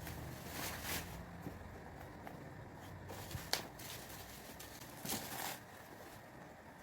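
Hands handling album packaging: a few short rustles of paper or plastic and one sharp click or tap midway.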